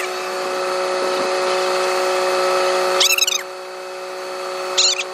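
A steady mechanical hum holding several even tones, with two short high squeaky calls, one about three seconds in and a shorter one near the end.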